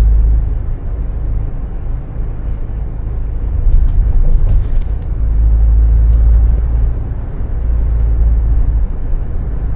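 Car cabin noise from inside a moving taxi: a steady low engine and road rumble, swelling louder about four to six seconds in.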